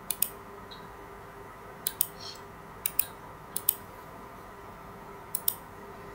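Computer mouse button clicked five times, each click a quick press-and-release pair, as line points are placed in a CAD sketch. A faint steady hum runs underneath.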